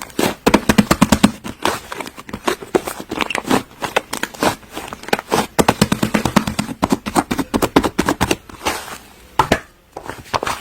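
Slime being squeezed and pressed by hand, making rapid sticky clicks and pops, with a short pause a little over nine seconds in.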